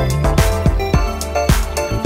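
Background music with a steady beat, about two beats a second, over a sustained bass line.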